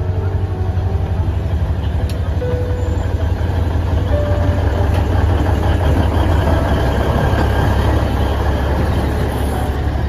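Alishan Forest Railway diesel locomotive DL-41 pulling its train past close by, its engine giving a steady low rumble that grows louder as the locomotive passes in the second half, then its passenger cars rolling by.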